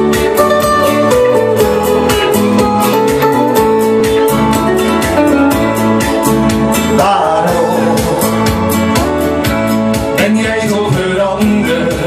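Instrumental intro of a Dutch-language pop ballad: a steady beat with guitar and a melody line over it.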